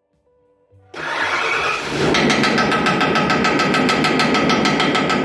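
Van engine starting about a second in, then running with a loud, even clatter of rapid knocks, about six a second. The engine is freshly installed and the knocking is part of a prank on the mechanic who installed it.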